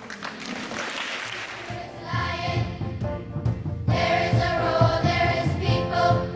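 Music with a choir singing, coming in about two seconds in after a brief wash of noise.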